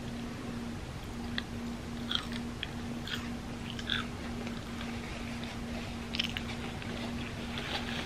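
Close-miked chewing of a soft hotteok (Korean sweet filled pancake) coated in melted chocolate: scattered wet mouth clicks and smacks about once a second, over a faint steady low hum. A napkin rustles near the end.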